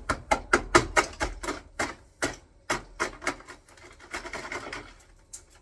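A quick run of sharp clicks and knocks, about four or five a second, spacing out toward the end, with a brief rustle about four seconds in.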